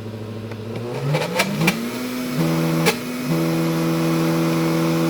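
Breville Bluicer blender motor running under thick peanut butter: about a second in its pitch rises, with a few sharp knocks, then it runs steady at a higher pitch. This is the sound the user calls not a good sound; she later puts it down to an air bubble at the bottom, with the blade spinning free and nothing mixing.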